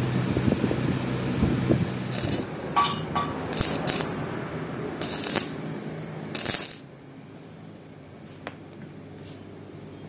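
Arc (stick) welding on a steel pipe padlock body: several short bursts of arc noise, each under a second, between about two and seven seconds in. Before them, light clinks of small iron parts being handled.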